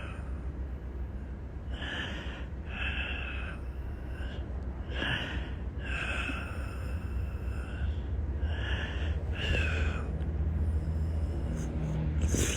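A man ill with a cold breathing heavily through a congested nose and mouth, with short, rasping breaths about every second or two over a steady low hum.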